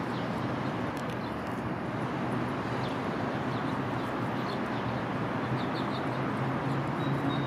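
Steady hum of distant road traffic, with a few faint, short, high bird chirps.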